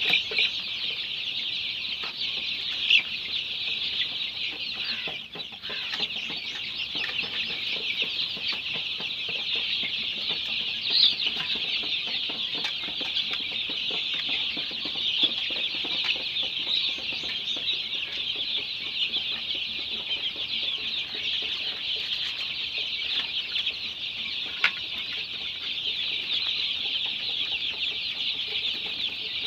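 A large flock of 26-day-old Golden Misri chicks peeping continuously in a dense, high-pitched chorus, with a few louder single calls standing out.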